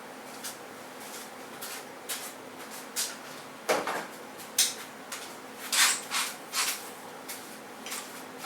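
Scattered knocks, clicks and scrapes from handling a clamp and wooden boards on a workbench, irregular, with the loudest clunks a little under four seconds and about six seconds in. A faint steady low hum lies underneath.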